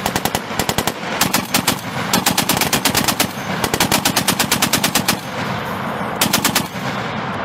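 .50-calibre M2 Browning heavy machine gun firing in several long bursts of rapid shots, with short pauses between them.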